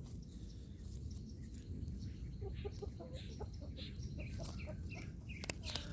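A hen clucking softly: a few short, faint clucks in the middle stretch.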